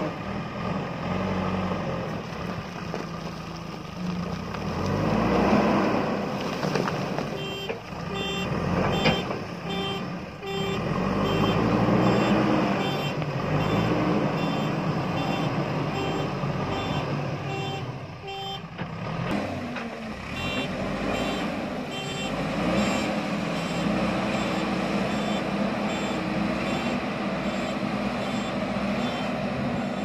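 JCB backhoe loader's diesel engine running and revving under load as the front bucket pushes earth and rock. Its reversing alarm beeps repeatedly through the middle of the stretch while the machine backs up.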